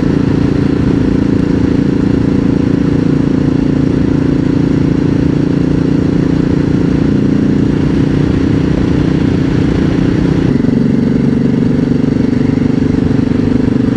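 Dual-sport motorcycle engine running steadily at cruise. About ten seconds in, its pitch steps down slightly.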